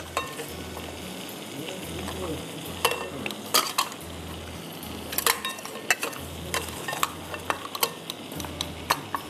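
Butter melting and sizzling in a pan while being stirred, with repeated sharp clicks of the utensil against the pan.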